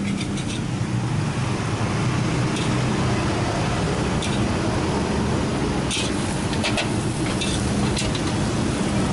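Steady low rumble of street noise with a few short, sharp clinks of china plates being handled.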